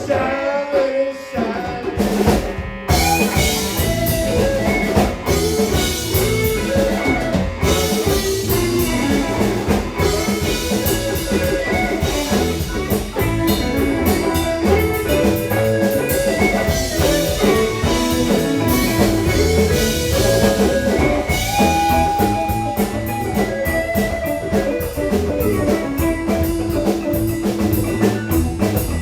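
A live band playing a bluesy rock jam, with drum kit and guitar.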